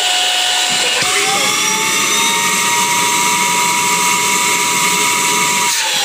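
Suction motor of a Bolde Smart Hoover Aquaman wet-dry floor cleaner running at low speed with a steady whine. About a second in, the whine rises a little in pitch and holds, with more air noise under it, as the suction inlet is blocked. Near the end it drops back.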